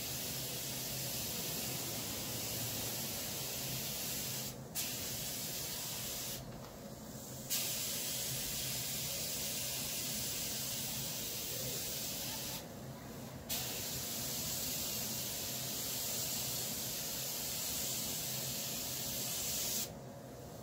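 Compressed-air paint spray gun spraying clear coat in a steady hiss. The trigger is let off briefly about four and a half seconds in, and for about a second twice more, each restart opening with a short spurt. The spraying stops near the end.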